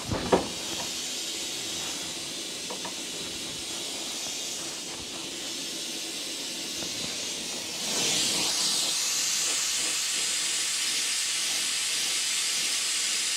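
A gas torch burning with a steady hiss, its flame played onto a seized bronze pivot pin to free it. The hiss grows louder about eight seconds in as the flame goes onto the part.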